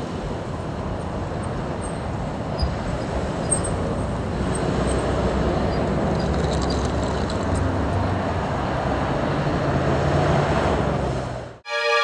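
City street traffic noise: cars passing through an intersection, a steady rumble that grows slowly louder. It cuts off suddenly just before the end, when a sustained musical chord comes in.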